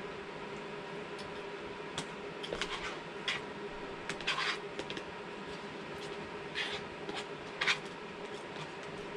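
Steady background hum with a handful of short rustles and clicks from a plastic food container and its lid being handled, the loudest near the end.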